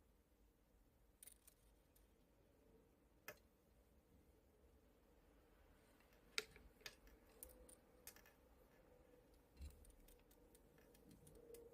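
Near silence broken by scattered faint clicks and taps, a sharper click about three seconds in and another about six seconds in, with a run of small ticks near the end.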